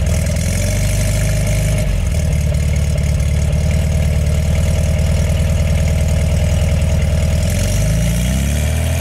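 1971 VW Beetle's 1600 twin-port air-cooled flat-four running through a Vintage Speed Sebring exhaust. It idles steadily, then the revs climb over the last second and a half.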